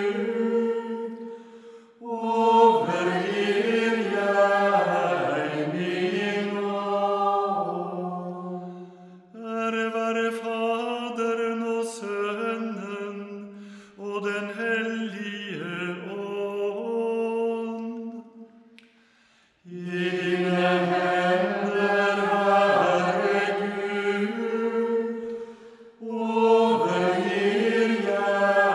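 Voices singing a Norwegian liturgical chant from evening prayer, in phrases of several seconds separated by short breath pauses.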